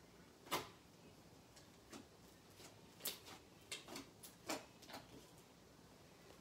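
Homemade slime, wet with foaming soap, being pulled off a wooden table and kneaded: faint scattered sticky pops and squelches, the sharpest about half a second in and a quick run of them a few seconds later.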